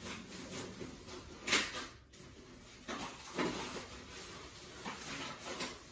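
A few brief rustles and knocks of things being handled in a small room, the clearest about a second and a half in and around three seconds in.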